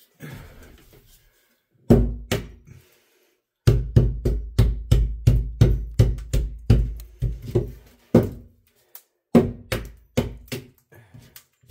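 Hammer blows on the edge of a ceiling drywall opening: two strikes, then a fast run of about three to four blows a second for several seconds, then a few more, knocking off lumps so the patch will sit flat.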